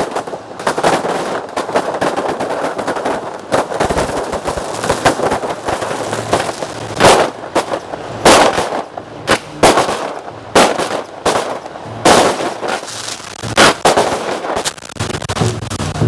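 Fireworks going off: a dense, continuous crackling with louder bangs every second or so from about six seconds in.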